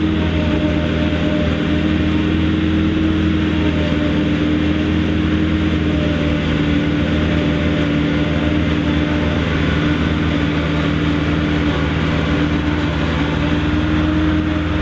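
Mercedes-Benz MB Trac 800's four-cylinder diesel engine running steadily under load while a Taarup 101 forage harvester chops maize and blows it into a trailer. A steady tone sits over the engine's drone.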